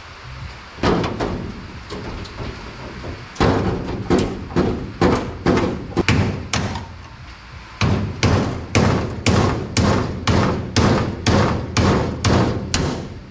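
Repeated heavy blows on the steel door of a utility truck box, knocking the door loose where its spot welds were drilled out. There is a single blow about a second in, then a steady run of strikes at about two a second, with a short pause near the middle; each strike rings briefly.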